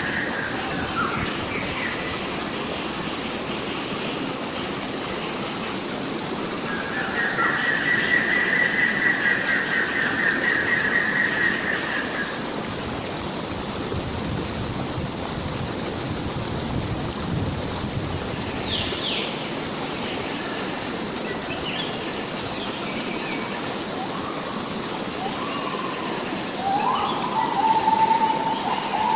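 Running stream water with wild birds singing over it: a long, rapid pulsed song about a quarter of the way in, a few short chirps midway, and a lower-pitched call near the end.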